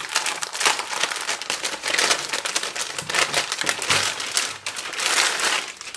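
Plastic anti-static bag crinkling and crackling as a motherboard is worked out of it. The crackling is dense and continuous and dies away near the end.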